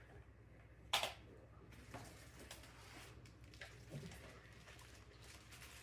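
Handling noise from unpacking a robot vacuum: one sharp knock about a second in, then a few faint taps.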